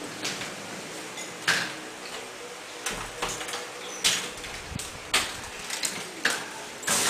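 Clicks and knocks of a front door's lock and latch being worked and the door opened, with a wheeled suitcase being handled and rolled over a tile floor. The knocks come about a second apart, with a brief low rumble about three seconds in.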